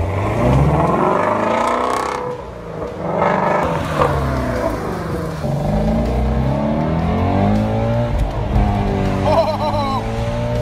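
Ford Mustang Shelby GT350R's 5.2-litre flat-plane-crank V8 revving and accelerating, its pitch climbing and dropping several times as it runs up and shifts through the gears.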